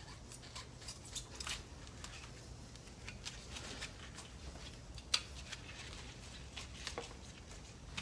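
Utility knife blade cutting and scraping at a tubeless tyre's rubber tread, trimming a puncture-repair plug flush: a run of irregular light scrapes and clicks, with one sharper click about five seconds in.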